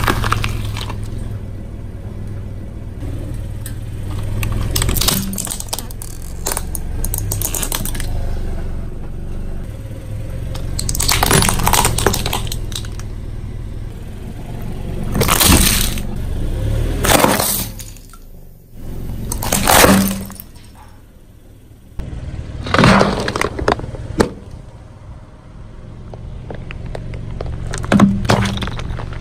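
A car tyre rolling over and crushing a series of objects, among them disposable plastic lighters, a water balloon and an aerosol can. There are about nine separate sharp cracks, pops and bursts a few seconds apart, over a low steady hum.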